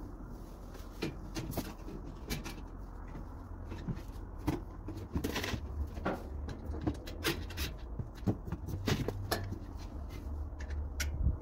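Scattered, irregular clicks and knocks of grill parts and hardware being handled during assembly, over a steady low hum.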